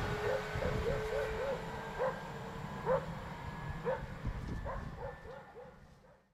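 A dog barking repeatedly: a quick run of five barks, then single barks about a second apart, with a short burst of several near the end. Underneath, the low rumble of an electric train pulling away fades steadily to near silence.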